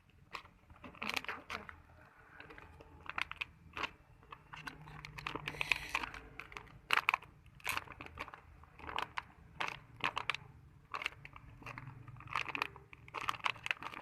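Irregular crinkling and crunching handling noise in short bursts, several a second at times, with brief pauses between.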